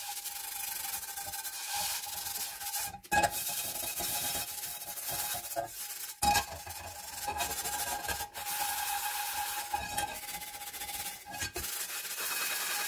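Steel wool scourer scrubbing a rusted cast iron pan with soapy water to strip off the rust: a continuous harsh scratching with a few brief breaks.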